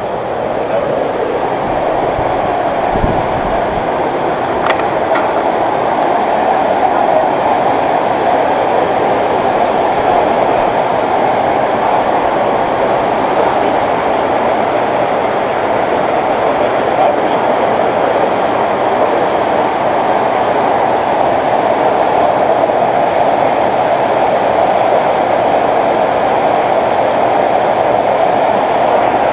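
Steady rushing noise of a car on the move: road and wind noise, with no clear engine note above it.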